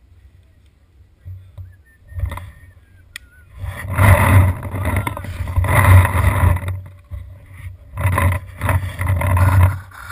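Loud rumbling and rustling noise on a body-worn action camera as its wearer runs over the leaf-littered ground. It comes in four bursts starting about three and a half seconds in, after a quiet start.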